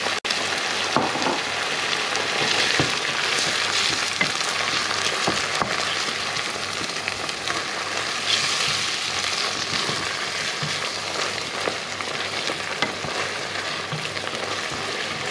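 Mince and tinned chopped tomatoes sizzling steadily in a frying pan, with a wooden spatula stirring and scraping through them.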